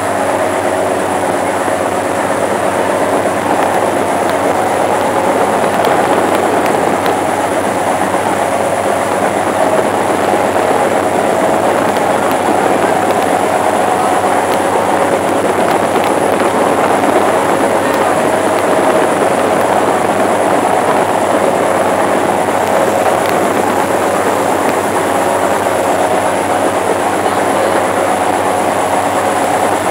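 Steady rumble of a river launch running at speed, its engine running under the rush of water along the hull and wake, heard on board.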